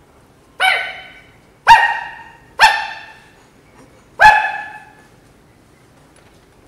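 A dog barking four times in quick succession, each bark loud and sharp with a short fading tail.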